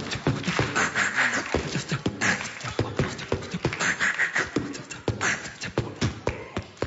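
A man beatboxing into a handheld microphone: a fast, rhythmic run of kick-, snare- and hi-hat-like mouth sounds mixed with short vocal noises. It trails off near the end.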